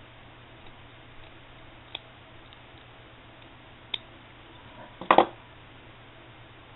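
Small scissors snipping a feather quill, a few faint sharp clicks spaced about two seconds apart. A louder brief clatter about five seconds in.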